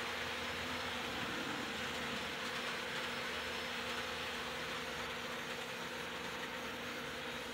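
Electric model trains running around an oval layout: a steady buzzing hum of the small motors with the whir of wheels rolling on the track.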